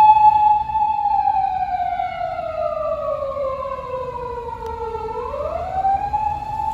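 Japanese police car siren wailing: a held tone that slowly falls in pitch over about four seconds, then quickly rises back to the held tone.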